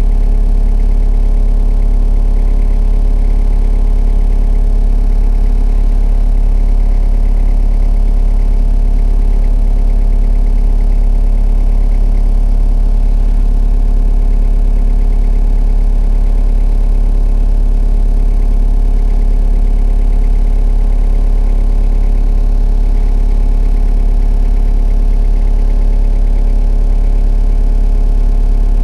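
Excavator's diesel engine running steadily at a constant speed, with no revving or load changes.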